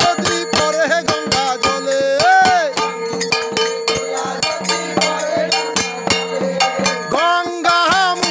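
Devotional kirtan music: a mridanga barrel drum and kartal hand cymbals keeping a fast, steady beat, with group singing rising in phrases over a steady held tone.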